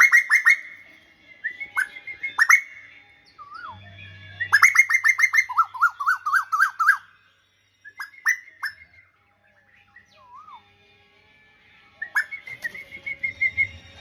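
A songbird singing loudly in bursts: rapid strings of sharp, downward-slurred whistled notes and fast warbling phrases, with a quieter pause a little after the middle.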